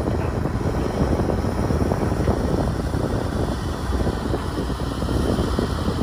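Kobelco crawler excavator's diesel engine running steadily under load as the machine digs soil and swings a loaded bucket over to a dump truck.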